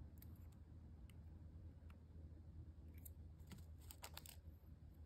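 Faint, scattered small metallic clicks and ticks of a tiny Torx screwdriver working on the metal spring hinge of a sunglasses frame, with a quick cluster of clicks about three and a half to four seconds in, over a low steady hum.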